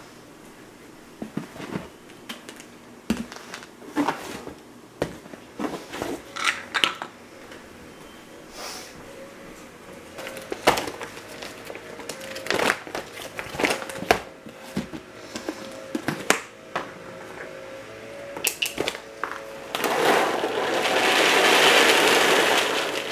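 Handling of a plastic bag of Purina Beneful dry dog food: crinkling with scattered clicks and knocks. Near the end, dry kibble pours from the bag into a plastic container in a loud, steady rattling rush lasting about three seconds. Faint background music runs underneath.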